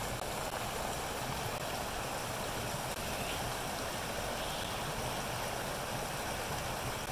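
Rocky woodland stream rushing over rocks, a steady, unbroken rush of white water.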